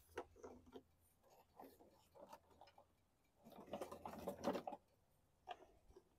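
Faint handling noises on a lawn mower's plastic engine shroud: a few light clicks, then a denser second-long patch of small plastic knocks and scrapes about three and a half seconds in, as a filler cap is worked off.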